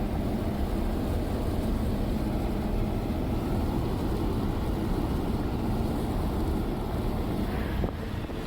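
A vehicle driving along a road: steady engine and road noise, easing off slightly near the end.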